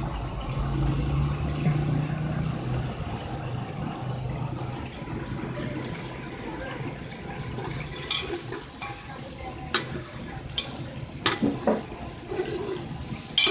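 Onion masala sizzling and bubbling in hot oil in an aluminium pot, a steady frying hiss. In the second half a steel spoon clicks sharply against the pot a few times.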